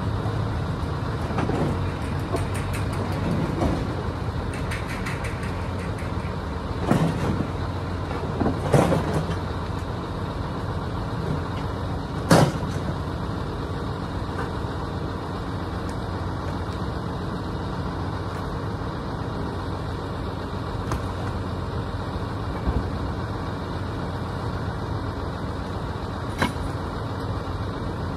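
A motor vehicle running steadily with a low rumble, with several sharp knocks or clanks about a third of the way in, the loudest near the middle.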